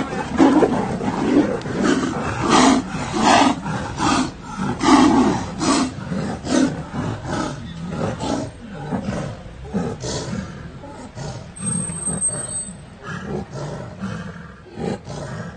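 Two tigers fighting, roaring and snarling in quick repeated bursts, loudest in the first half, then fainter and more spaced out.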